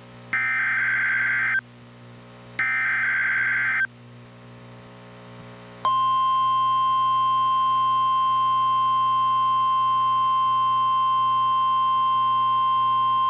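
NOAA Weather Radio SAME alert header: the last two of its three digital data bursts, each about a second long with a second's gap between them. About six seconds in, the steady 1050 Hz warning alarm tone starts and holds unbroken. Together they announce a Special Marine Warning.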